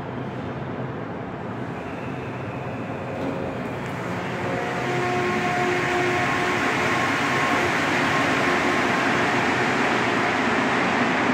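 Rubber-tyred Montreal Metro train, car 79-666, pulling away from the platform. Its electric traction motors give steady tones that change pitch in steps as it picks up speed, and the running rumble grows louder about four to five seconds in.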